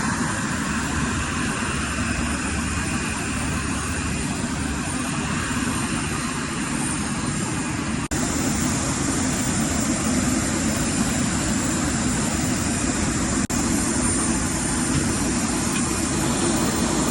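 Steady jet-engine and air-conditioning noise of an Airbus A319, heard from inside the passenger cabin, with two brief dropouts.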